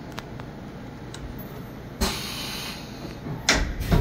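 Automatic tool change on a Kitamura MyCenter 4XV vertical machining center: a few light clicks, a sudden hiss of air about halfway through, then sharp mechanical clunks near the end as the tool is swapped into the spindle. It runs without trouble.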